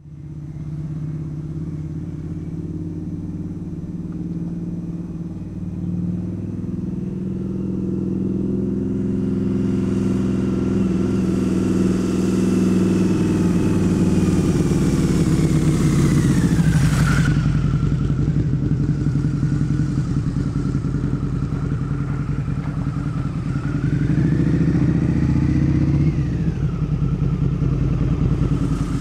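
Motorcycle engine running as the bike rides past, growing louder and then dropping in pitch as it goes by about halfway through. Near the end the engine revs up and its pitch falls away sharply, as at a gear change.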